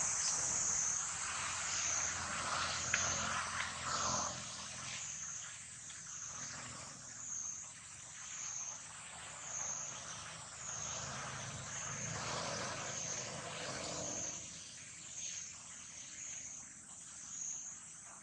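Outdoor ambience: a steady high-pitched insect drone that swells slightly about once a second, over a soft hiss of background noise.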